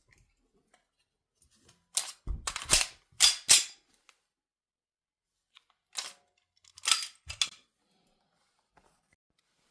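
A gun being reloaded by hand: a quick run of sharp mechanical clacks about two seconds in, then a second run of clacks about six to seven and a half seconds in.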